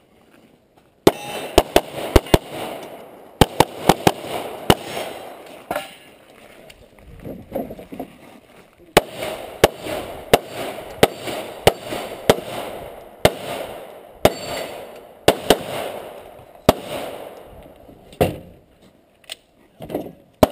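Handgun firing a USPSA stage: quick pairs and strings of shots, each ringing out briefly. They begin about a second in, break off for a few seconds about a third of the way through, and then go on to the end.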